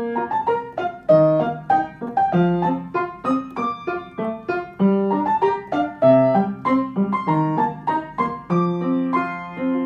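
Piano music: a tune of single struck notes, about three a second.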